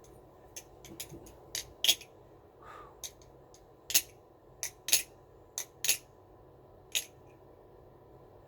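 Aluminium channel-handle balisong trainer being flipped: its handles and blade clack shut in sharp clicks, about a dozen at an uneven pace, ending about seven seconds in. The blade does not tap on its tang pins and the knife has little to no play.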